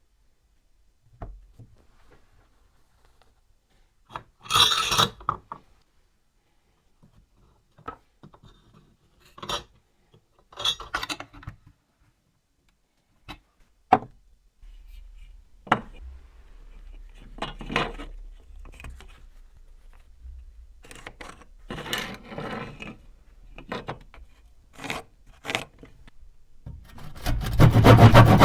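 Hand tools scraping and rubbing in short strokes with pauses between them, the loudest about five seconds in. A loud continuous rasping starts near the end.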